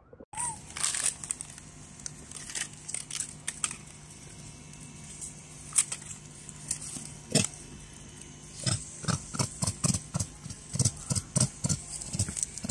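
Macaques moving about and tussling at close range: a run of short scuffing and clicking sounds with low grunts. These come thickest in the last few seconds.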